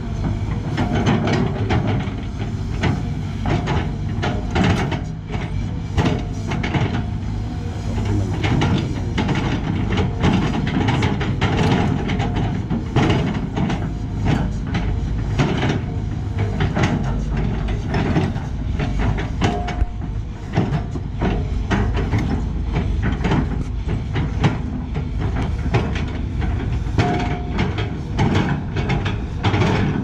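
Sany SY215C crawler excavator working: its diesel engine and hydraulics run steadily, with frequent clanks and scrapes as the bucket grades a slope of dirt and stones.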